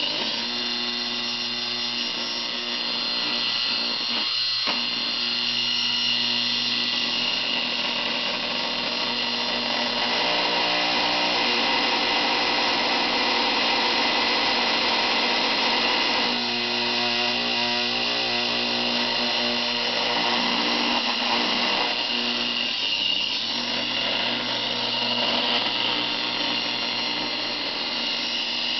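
Old 3.5-inch desktop hard drive, modified and abused, spinning at speed: a loud, steady whine with a rough rattling edge. The tone wavers and beats for several seconds past the middle.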